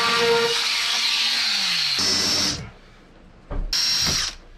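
Power drills working wood: a corded drill runs steadily, its pitch sinking as it slows, and cuts off about two and a half seconds in. After a short pause a cordless drill gives a brief burst near the end.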